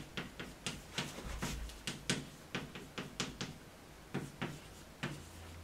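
Chalk writing on a blackboard: an irregular run of sharp taps and short scratches, about two or three a second, as characters are written stroke by stroke.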